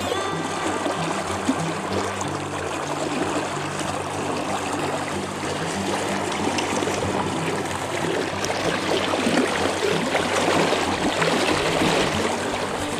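River current rushing and swirling close to the microphone, getting louder near the end, while a hooked grayling is played in at the surface.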